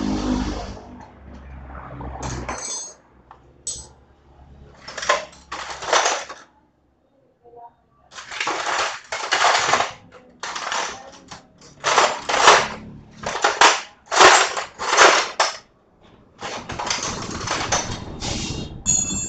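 Hands working inside an opened old transformer welding machine. A few metal clinks and knocks come in the first seconds. Then, from about five seconds in, a series of about a dozen short noisy bursts, each under a second, come with short gaps between them.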